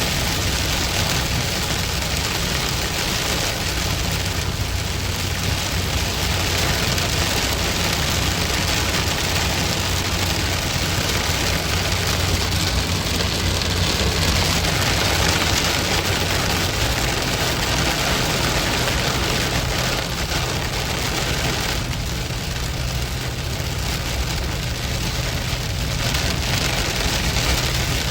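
Rain drumming steadily on a moving car, heard from inside, over a steady low hum of engine and road noise.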